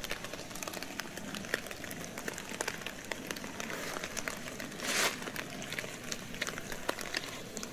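Footsteps crunching and rustling through dry fallen leaves: a steady run of small irregular crackles, with a louder rustle about five seconds in.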